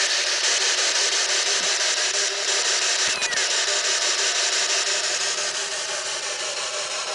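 Spirit box radio scanner sweeping through stations: a steady hiss of static chopped into rapid, even clicks. About three seconds in, a short sliding fragment comes through that the investigators take for a spirit repeating the word "fear".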